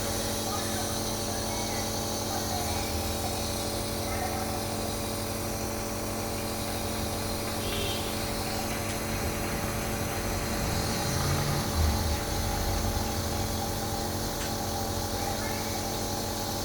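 Compressor nebulizer's motor pump running with a steady, unchanging hum. A brief louder low bump comes about twelve seconds in.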